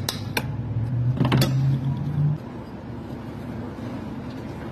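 A few sharp metal clicks from vice grips working a broken bolt loose, then a steady low hum for about two seconds that stops suddenly.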